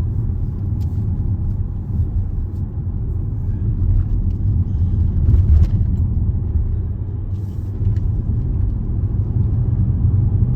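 Steady low rumble of road and engine noise heard inside a moving Range Rover's cabin, swelling slightly about halfway through.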